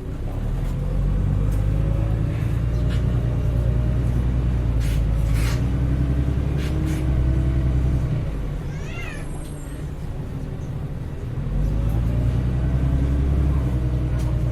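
Heuliez GX317 LPG city bus heard from on board, its engine pulling under load with the pitch slowly rising. The engine eases off just past halfway, a brief wavering squeak sounds, and a few seconds before the end it pulls again.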